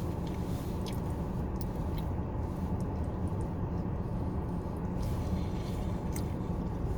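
Close, faint chewing and small clicking as oxtail meat is gnawed off the bone, over a steady low hum inside a car.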